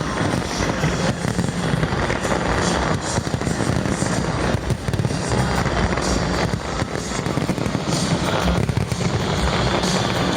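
A fireworks display, with bursts and crackles following one another in rapid succession, over music.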